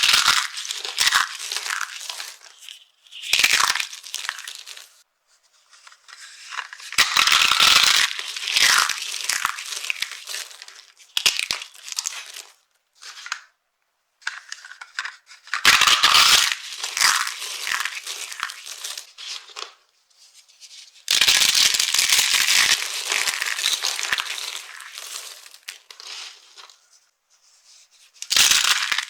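Dry soap crunching and crumbling as it is crushed, in about six runs of crisp crackling with short pauses between.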